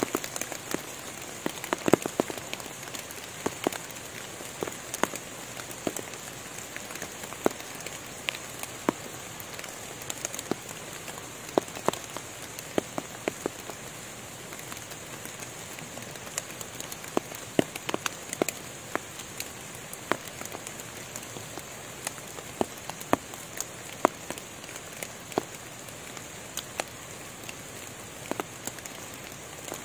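Rain in a forest: a steady hiss with irregular sharp taps of single large drops landing on leaves and the ground, several a second at most.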